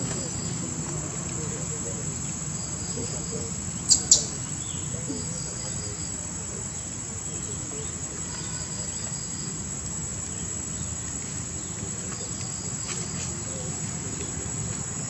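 Insects chirring outdoors: a steady high-pitched drone, with a short chirp of a few quick pulses repeating every few seconds. Two sharp clicks about four seconds in are the loudest sounds.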